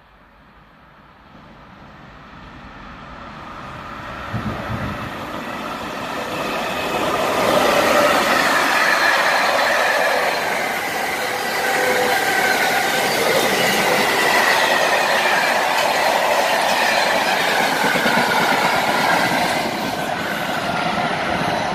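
Freight train approaching and passing through the station: the rumble grows over the first several seconds, then a long run of wagons clatters past with a wavering squeal from the wheels.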